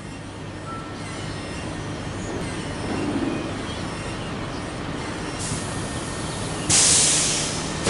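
Industrial city ambience building up: a steady low machine hum and rumble under a noisy wash. Near the end a loud hiss starts suddenly and fades over about a second.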